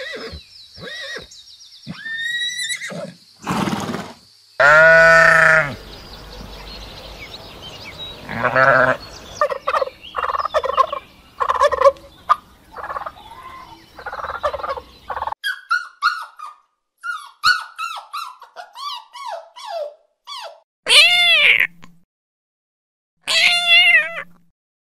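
Farm animals calling one after another. A loud drawn-out call comes about five seconds in. Domestic turkeys gobble and chatter in a busy run of short calls through the middle, then a kitten meows twice near the end.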